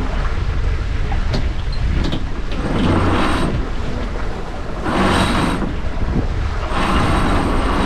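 Wind buffeting the microphone aboard a sailboat under way, over a steady low rumble, with three swells of rushing water about two seconds apart.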